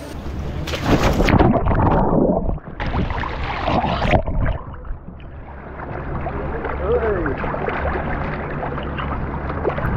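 Sea water splashing and sloshing around a camera held at the water's surface, loudest in a few bursts over the first four seconds, then a steadier wash of water with a low hum underneath.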